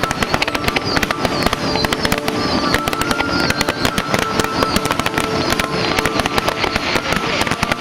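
Fireworks going off in a dense, continuous barrage of rapid crackling and bangs, several cracks a second without a break, with a few held tones sounding behind them.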